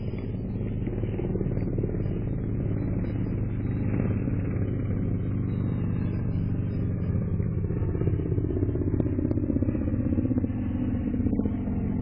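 A groundhog eating apple right against the camera's microphone: its chewing and fur brushing the mic make a loud, steady low rumble.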